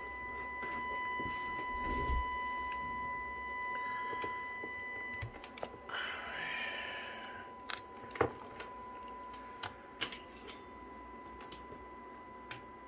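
A steady 1 kHz test tone from a Tram D12 CB receiver as it demodulates a signal generator's carrier, modulated 30% at 1000 Hz, during receiver alignment. It is an annoying tone, and a fainter higher overtone drops out about five seconds in. Several sharp clicks come in the second half as the bench test gear is handled.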